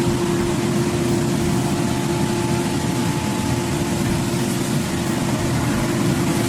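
Large excavator running steadily: an even mechanical drone with a constant low hum.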